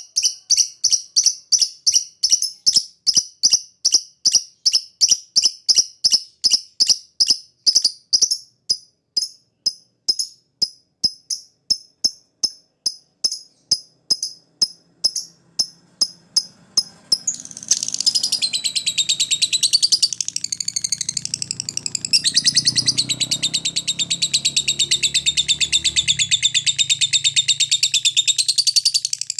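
Lovebird 'ngetik': short, sharp high chips repeated about three times a second that grow gradually fainter. A little past halfway the bird breaks into 'ngekek', a loud, continuous rapid chatter held to the end.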